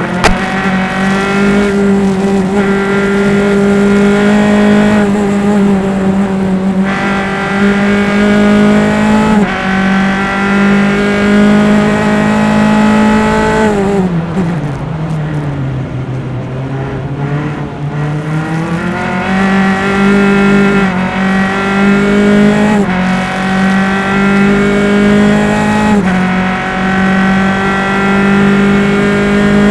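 Single-seater race car engine recorded onboard at high revs. About 14 seconds in the revs fall away and hold low for a few seconds, then climb back up, with brief breaks in the note at the gear changes.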